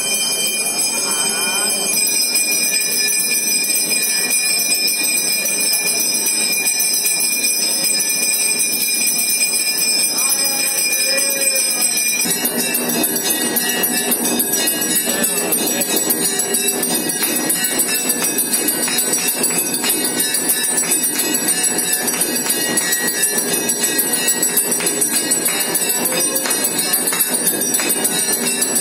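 Temple bells ringing without pause for the aarti, many bell tones clanging at once. About twelve seconds in, the ringing changes to a denser, faster clanging.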